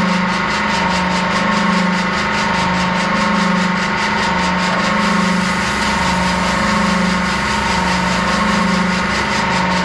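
Valve-bag cement packing machine running with a loud, steady mechanical hum that swells and eases about once a second, over a fast flutter, as it fills bags with powder.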